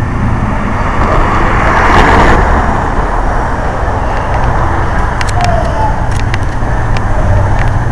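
Road traffic at an intersection: cars driving past close by, a steady rumbling noise that swells to its loudest about two seconds in and then drops away sharply.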